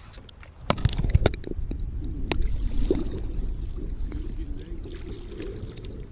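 Paddle and hull knocks, scrapes and splashes of a sit-on-top kayak being worked free of a shoreline bush: several sharp knocks in the first three seconds over a steady low rumble.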